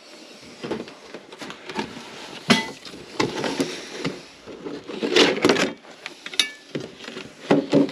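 Rummaging through parts on a workbench: a string of uneven knocks and clatter as objects are picked up and set down, with a couple of short ringing metallic clinks.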